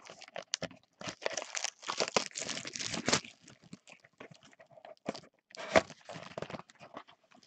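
Trading-card pack wrappers being torn open and handled, foil and plastic crinkling in irregular bursts, busiest in the first half and again about six seconds in.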